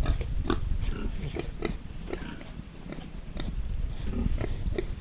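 Pigs grunting in many short, irregular bursts, several a second.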